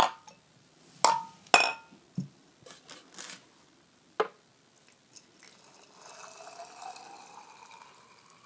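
Glass canning jars clinking and knocking as they are handled and set down, a few sharp clinks with a short ring. About six seconds in, tap water is poured from a pitcher into a pint jar of dry beans, its pitch rising steadily as the jar fills.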